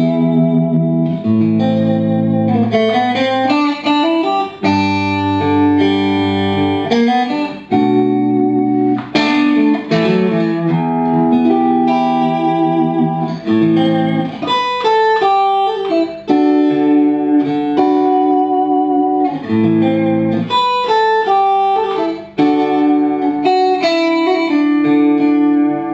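Suhr Classic Antique Stratocaster electric guitar played through an amplifier on its middle pickup: sustained chords changing every second or two, with runs of shorter single notes between them.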